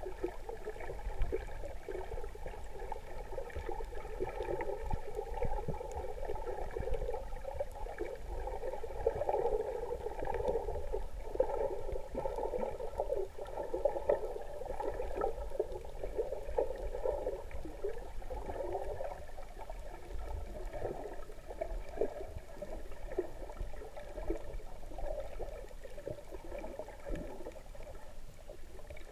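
Continuous, muffled sloshing and gurgling of water with a low rumble underneath, picked up with the camera in shallow water.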